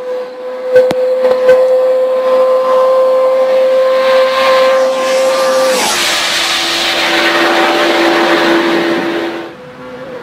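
Sport motorcycle passing at full throttle: a high, steady engine note climbing slightly as it approaches, then dropping sharply in pitch as it goes by about six seconds in, followed by a rushing wash of noise that cuts off near the end. A few sharp clicks sound about a second in.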